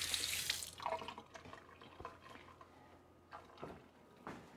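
Kitchen tap running, shut off under a second in, followed by a few light knocks and clicks at the counter.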